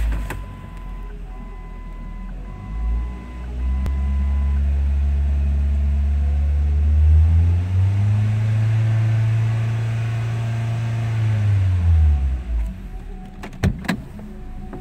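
2005 Ford Focus ZX4's 2.0-litre four-cylinder engine just started and running, with a dashboard chime beeping through the first few seconds. The revs come up about four seconds in, are held higher from about eight to twelve seconds, then drop back. A few sharp knocks near the end.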